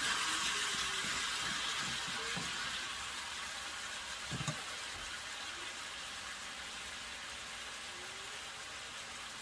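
Chicken pieces and sausage frying in a wok, a steady sizzle that slowly dies down, with a single knock about four and a half seconds in.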